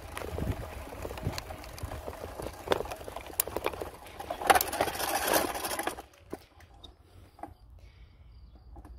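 Bicycle rattling over a rough dirt track, heard through a handlebar-mounted phone: a rapid, irregular clatter of knocks and tyre noise, loudest around five seconds in, then much quieter after about six seconds with only a few faint ticks.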